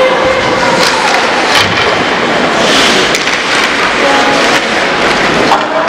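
Ice hockey play in an echoing indoor rink: a steady noisy wash with sharp clacks of sticks and puck scattered through it, and a few voices calling out.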